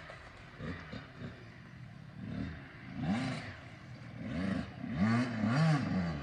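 Dirt bike engine revving up and down several times as it accelerates and shifts, the pitch rising and falling in arcs that get loudest between about three and six seconds in.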